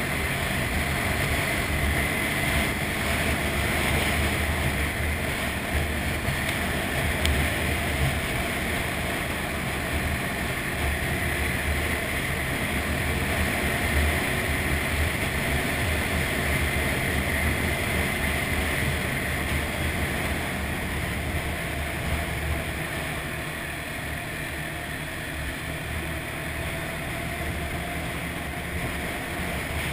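ATV engine running steadily while riding along a dirt trail, with wind rushing over the microphone.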